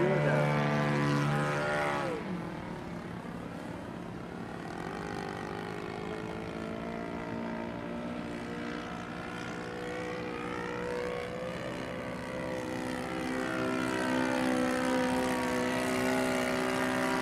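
Engine and propeller of a radio-controlled scale Fokker D.VIII model airplane in flight overhead, droning steadily. About two seconds in the pitch drops sharply as the plane passes and pulls away, then climbs gradually and grows louder again as it comes back around.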